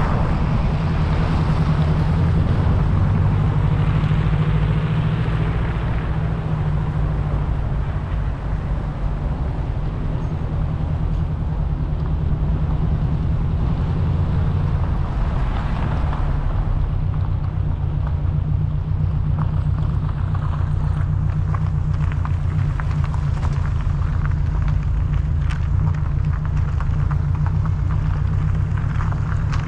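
Car driving on a road: steady low engine and road rumble, with scattered short knocks and rattles in the second half.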